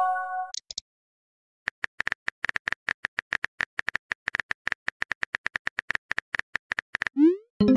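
Chat-app message sound effects. A message chime fades at the start, then, after a short gap, comes a quick even run of light keyboard-typing clicks, about five or six a second, for about five seconds. Near the end a short rising bloop is followed by another message chime.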